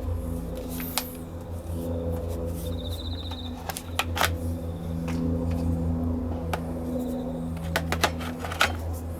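Battery-powered handheld pressure washer running, its motor and pump making a steady low hum with a rapid pulse, with a few sharp clicks scattered through.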